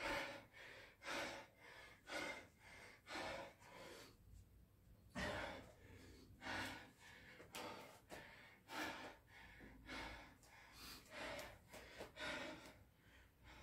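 A man breathing hard and fast, out of breath from sets of burpees and kettlebell thrusters, one noisy breath about every half second, with a pause of about a second some four seconds in.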